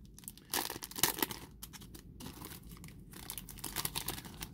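Foil wrapper of a trading-card booster pack crinkling and tearing as it is peeled open by hand, in irregular bursts that are loudest about half a second to a second in, then lighter crinkles.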